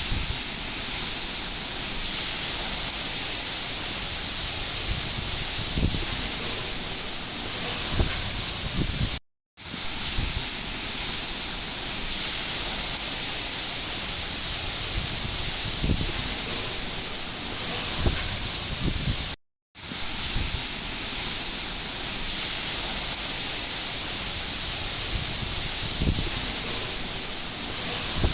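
Steady hiss of heavy rain with a few soft low thuds of drops. It cuts out to silence for a moment twice, about ten seconds apart, where the recording loops.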